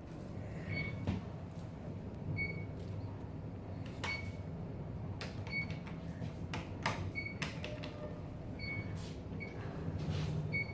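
Elevator car travelling with a steady low hum. Short high beeps sound every one to two seconds, and a few clicks come in between.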